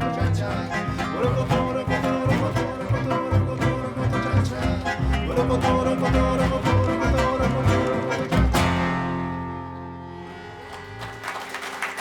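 Live tango candombe played by a string trio, with a driving, rhythmic beat. It ends on a sharp final accent about eight and a half seconds in, and the last chord rings and dies away. Applause begins near the end.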